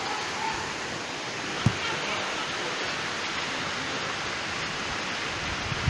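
Steady rushing of water from a heavy downpour, an even roar, with a single knock about a second and a half in.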